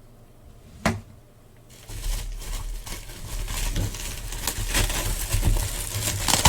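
A single sharp knock about a second in. Then, from about two seconds in, a continuous run of crinkling, rustling and small clicks as cardboard boxes and plastic packaging are handled and opened.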